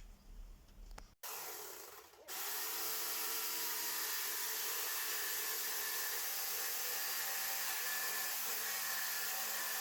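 An electric power tool running steadily, a loud even rush with a faint whine in it, which comes in after a cut about a second in and holds level from about two seconds in.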